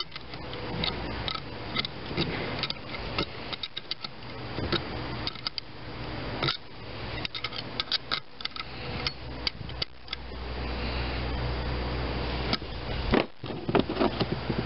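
Small steel wrench clicking and clinking on the terminal nut of a Delco-Remy starter-generator as the nut is tightened: a quick, irregular run of small metal clicks, then a few sharper knocks near the end as the tool is set down. A steady low hum runs underneath.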